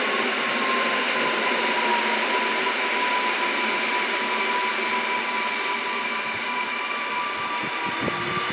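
Stadler FLIRT electric multiple unit pulling slowly into the platform, its traction motors whining in a few steady tones over a constant hiss of running noise, the main tone dipping slightly in pitch as it slows. A few low thuds come near the end.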